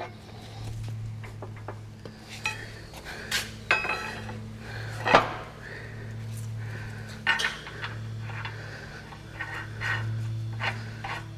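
Sharp metal clinks and knocks from steel hay-spear hardware: a wrench on the spear's retaining nut and the spears being handled in their mounts. The loudest knock comes about five seconds in, over a steady low hum.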